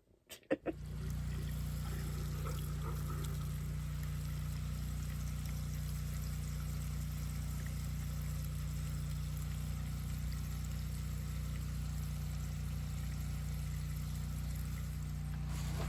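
Portable generator engine running steadily, a constant low hum that cuts in sharply about a second in.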